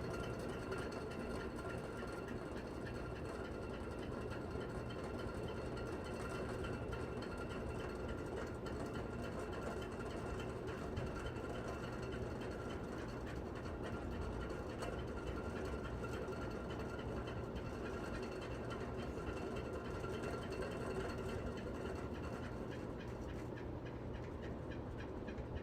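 Aliseu Terral electric fan running with a steady whine and a fast, even clicking rattle: the fan is making an abnormal noise.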